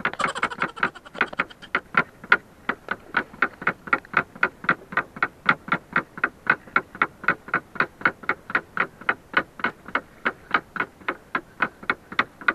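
Rapid, perfectly even ticking like a clock, about four ticks a second, keeping the same beat throughout.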